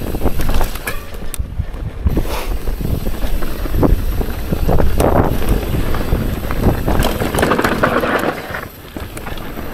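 Mountain bike riding fast down a dirt singletrack: wind buffeting the camera microphone over the rumble of the tyres on the dirt, with frequent sharp clicks and rattles from the bike over roots and bumps, and a couple of louder surges of hiss.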